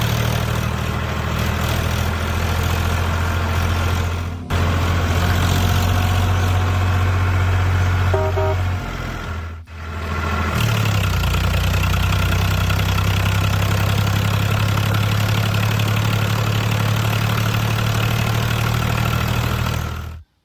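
A steady, low engine hum, like a vehicle idling, broken by two brief cuts about four and ten seconds in.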